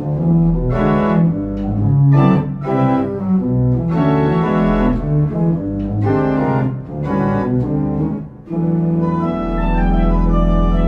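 Pipe organ playing a passage of quickly changing chords over a deep pedal bass, then settling into a long held chord near the end.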